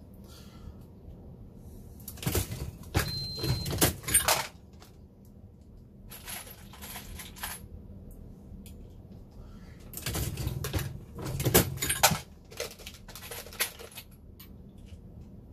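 A Dillon Square Deal B progressive reloading press being cycled by hand: metallic clanks and clicks of the lever, ram and indexing shellplate. It comes in two loud clusters, about two seconds in and again about ten seconds in, with quieter clicking and rattling between them.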